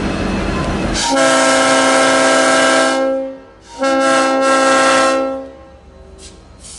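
Multi-chime locomotive air horn sounding two long blasts, each a steady chord of several notes, the first about two seconds and the second about a second and a half, with a short gap between.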